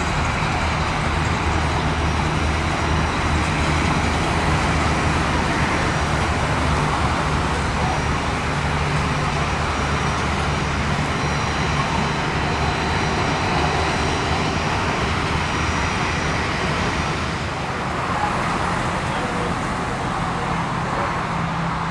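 Steady vehicle noise: a continuous low engine hum under an even hiss, with no distinct events.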